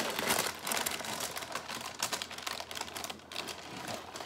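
Paper packing rustling and crinkling, a dense run of small crackles, as a sneaker is pulled out of its cardboard shoebox.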